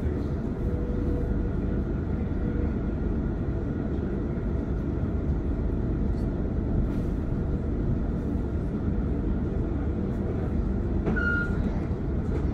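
Passenger train running, a steady low rumble heard from inside the carriage, with a brief high squeal about eleven seconds in.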